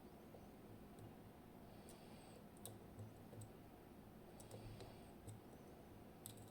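Faint, scattered tiny clicks and light scraping of a lock pick and tension wrench working the six tapered security pins inside a TESA T60 lock cylinder, each click a pin shifting or setting as the lock is picked.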